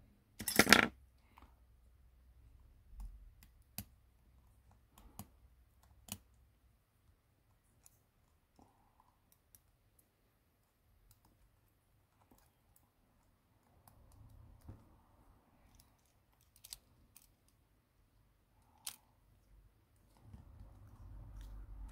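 Scattered small clicks and taps of hand tools on the opened insides of a Xiaomi Mi 11 Pro smartphone as it is taken apart, with quiet gaps between them; the loudest cluster comes about a second in.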